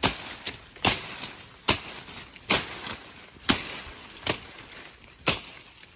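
A knife slashing through leafy grapevine shoots: about seven swift chops, roughly one a second, each trailing off in a brief rustle. This is the shoots being cut back at the trellis-wire height to open up the grape clusters.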